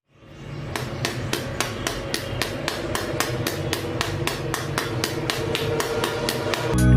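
Background electronic music fading in, with a sharp ticking beat about four times a second over held tones and a low bass, building up slowly. A much louder bass-heavy section breaks in at the very end.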